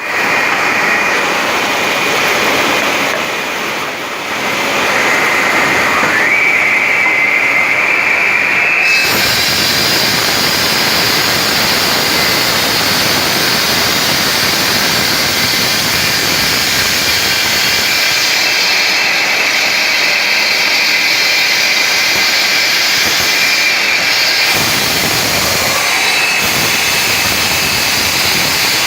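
Stone-cutting machine running loud and steady with a high whine, its sound growing fuller and harsher about nine seconds in.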